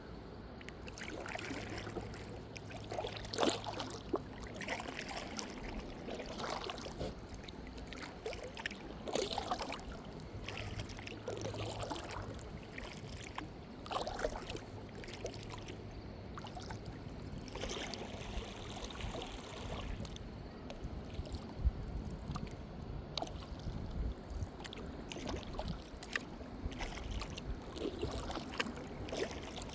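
Kayak paddle strokes: the blade dipping and pulling through calm water every couple of seconds, with water trickling and dripping off it between strokes.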